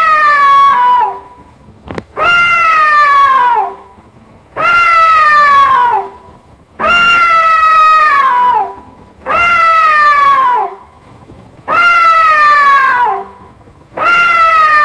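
Siamese cat meowing: a series of long, drawn-out meows, each about a second and a half, sliding down in pitch toward its end. They repeat at a steady pace, about one every two and a half seconds.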